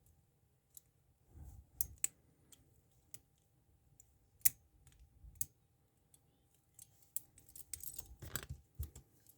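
Light clicks and scrapes of a ball pick working inside a Yuil handcuff's keyhole. The clicks are scattered, with a sharper one about four and a half seconds in and a busier stretch of scraping near the end.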